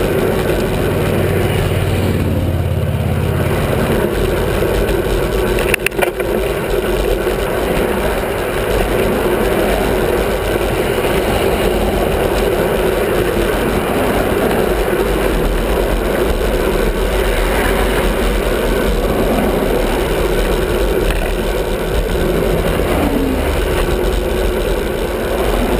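Steady rushing wind and road noise on a bicycle-mounted camera riding a highway bridge shoulder, with cars and an SUV passing close alongside in the next lane. A brief cluster of sharp knocks comes about six seconds in.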